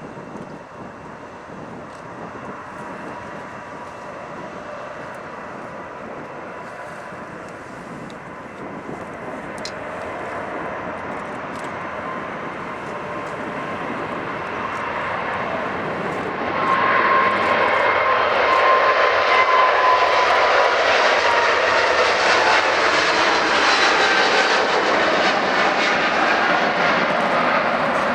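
Airliner's engines growing louder as it approaches, then loud and close from about halfway through, with an engine whine that slowly falls in pitch as the aircraft passes by.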